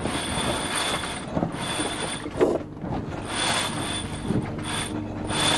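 Sailboat sheet winch clicking in repeated bursts as a sheet is wound in during a tack.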